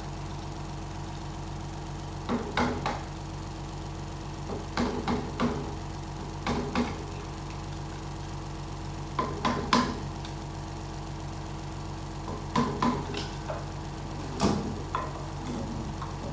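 Hand tools clicking and knocking against metal transmission parts in short, irregular clusters while the planetary set's safety clips are pried out, over a steady background hum.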